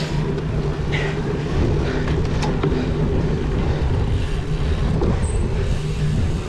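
Wind buffeting the microphone over the steady rumble of a cyclocross bike ridden over dry dirt, with a few light rattles.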